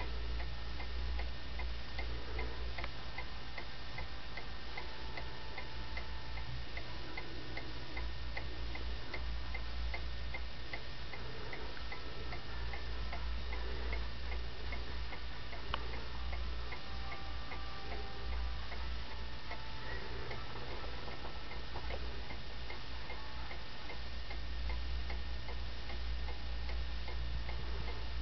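Home-built brass clock movement, unfinished and on its first test run, its escapement ticking in a steady, even rhythm.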